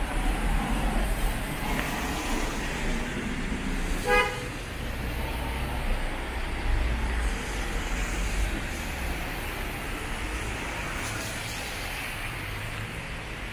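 Road traffic on a wet street: tyres on wet asphalt and engines passing, with one short vehicle horn toot about four seconds in.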